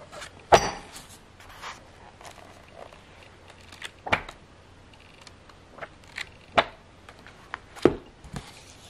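Pages of a large illustrated book being turned by hand: a series of brief, crisp paper flips and rustles. The loudest comes about half a second in, with more near four seconds and several close together near the end.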